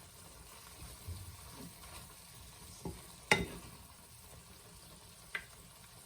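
A few light clinks and knocks of a utensil against a dish over a faint steady hiss, the loudest and most ringing about three seconds in.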